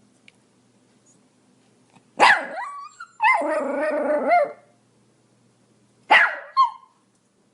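Pomeranian barking: one sharp bark about two seconds in, then a drawn-out pitched bark-growl lasting over a second, then two quick barks near the end.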